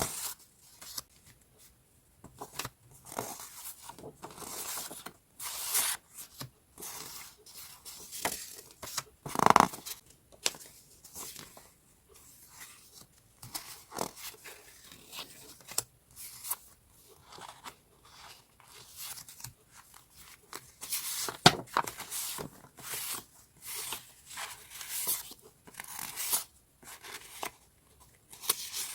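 Sheets of paper and journaling supplies handled up close: a run of short rustling, crinkling sounds, with louder crackles about nine and a half and twenty-one seconds in.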